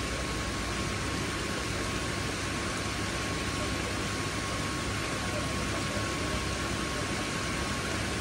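Steady hiss and hum of a koi pond's water circulation and pumps, with a faint steady high tone.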